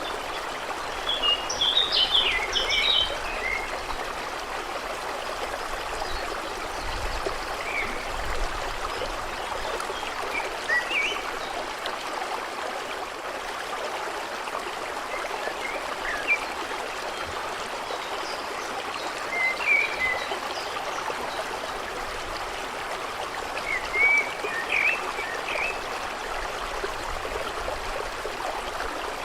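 A stream running steadily over stones, with small birds chirping in short phrases over it, busiest about two seconds in and again near the end.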